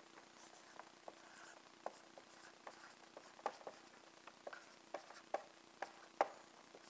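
Dry-erase marker writing on a whiteboard: an irregular string of faint taps and short squeaks as the letters are drawn, the sharpest tap about six seconds in.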